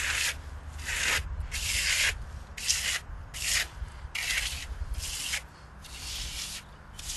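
Small trowel scraping and smoothing a wall of fresh earth plaster mixed with gypsum, in short repeated strokes a little more than one a second. The render is beginning to harden, so each pass rasps across the firming surface.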